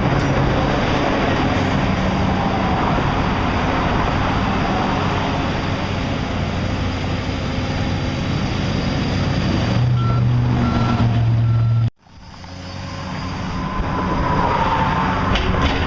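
Heavy construction machinery running steadily, with a backup alarm beeping a few times about ten seconds in. The sound cuts out abruptly about twelve seconds in and then builds back up.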